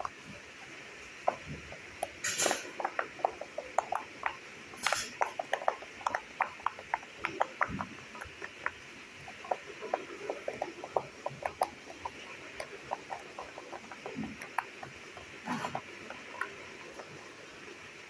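Yellow silicone pop-it fidget toy being pressed, its bubbles popping one after another in an irregular run of small pops, several a second. A few louder knocks come among the pops.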